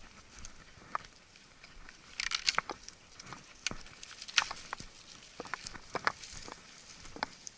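Footsteps through dry grass and scrub, with twigs crackling and snapping at irregular intervals and brush rustling against clothing, loudest about two seconds in.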